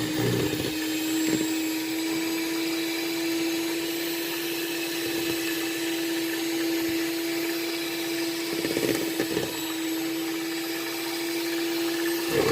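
Electric hand mixer running at one steady speed, beating cake batter in a bowl, with a constant motor whine. A few short bumps come through around nine seconds in.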